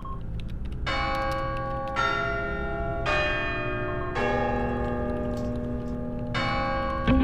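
Phone ringtone of bell-like chimes ringing, a new note struck about once a second with a slight pause before the last one.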